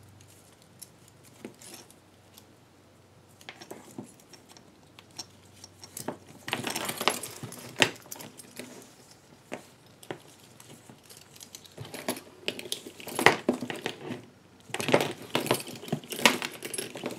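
Brass snap hooks and buckle on a leather strap clinking and jangling as the strap is handled and clipped to the bag, in several short flurries of clicks with quieter gaps between.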